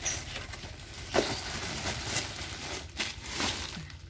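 Plastic packaging crinkling and rustling as it is handled: courier poly mailers and clear plastic wrap, with a few sharper crackles.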